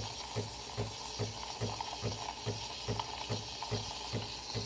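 Breville Barista Pro steam wand steaming milk in a stainless steel pitcher: a steady hiss of steam through the milk with a regular low pulse about two and a half times a second.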